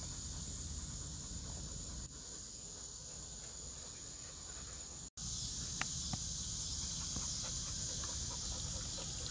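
Steady high-pitched chorus of insects over a low rumble; after a short break in the sound about five seconds in, the chorus is louder.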